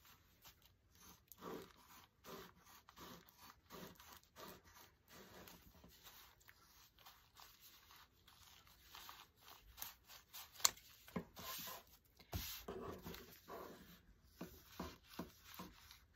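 Scissors snipping through a folded, thick plastic tablecloth, with the plastic crinkling: irregular cutting strokes, louder and sharper in the second half.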